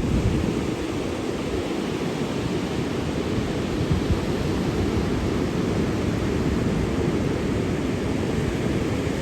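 Steady rush of ocean surf mixed with wind on the microphone.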